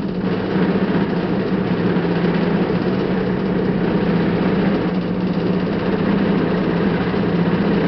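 Steady droning hum with an even hiss over it, heard from inside a moving cable-car gondola cabin.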